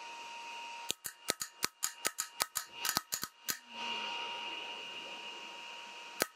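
Osram CLC 3.0 BiLED LED projector headlight powered on with a faint steady whine, and about a second in a fast, uneven run of a dozen or more sharp clicks lasting about two and a half seconds from its high/low beam shutter being switched back and forth, with two more clicks near the end.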